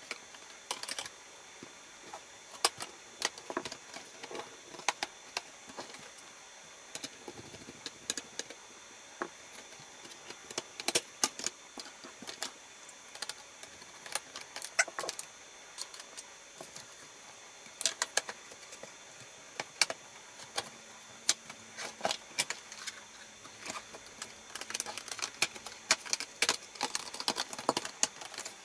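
Irregular sharp plastic clicks and snaps as a laptop's palmrest cover is pried off its clips and lifted away from the chassis, with light tapping and scraping of the tool and plastic parts.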